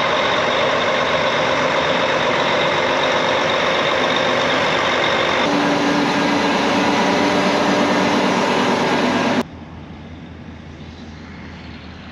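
A vehicle engine running steadily and loudly, its tone shifting about halfway through. It cuts off abruptly near the end, leaving a much quieter low hum.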